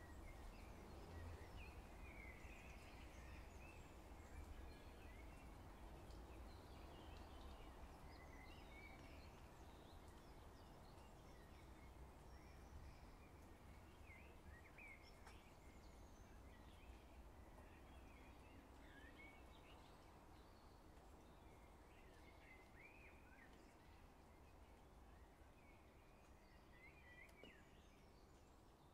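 Faint chorus of small birds chirping and calling, many short, quick notes, over a steady low rumble of wind. It slowly grows quieter.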